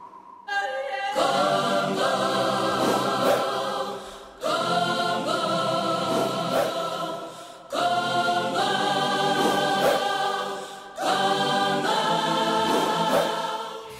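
Choir singing long sustained chords in gospel style, in four phrases that each start suddenly and fade away.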